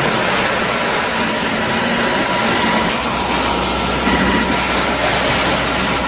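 Concrete pump truck running steadily, its engine and pump making a continuous mechanical drone as concrete is pumped through the delivery hose.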